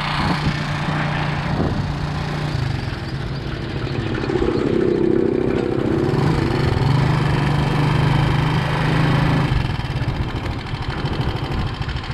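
Motorcycle engine running while riding, its steady note shifting in pitch a few times as the speed changes, with wind rushing over the microphone.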